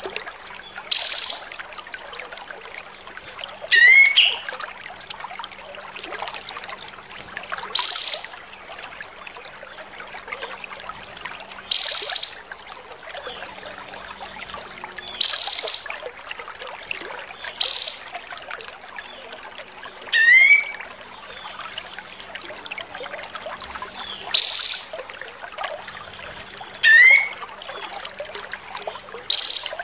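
Kapas tembak bulbul giving short, loud, sharp calls every two to four seconds. Most are quick downward sweeps from high pitch, and a few end in a rising slur. Behind them runs a steady trickle of water.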